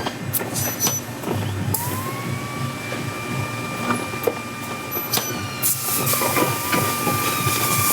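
A small power tool whines as it spins up about two seconds in, then runs at a steady high pitch. Scattered metallic clicks and taps sound around it, and a hissing rush joins in past the middle.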